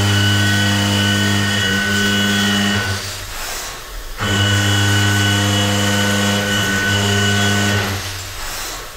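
Seco High Feed 6 indexable face mill side milling an alloy steel block at 1010 rpm: a steady, loud machining hum with a high whine of overtones. It falls away for about a second three seconds in, and again near the end.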